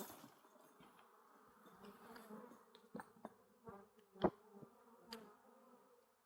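Honeybee swarm buzzing in a steady hum, with a few short knocks, the loudest about four seconds in.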